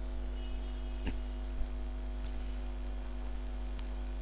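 Steady electrical mains hum with a faint, fast high ticking, about five ticks a second, and one small click about a second in.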